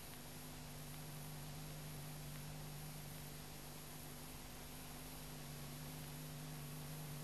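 Steady hiss with a low electrical hum from a deteriorated VHS tape transfer, and no other sound.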